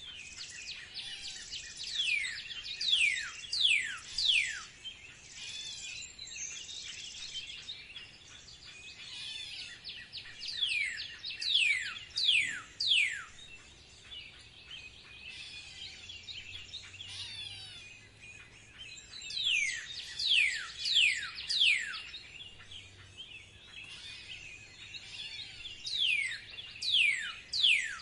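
A songbird singing: repeated phrases of four to six high, steeply falling notes, each phrase about two seconds long and coming roughly every eight seconds, over a faint steady background hiss.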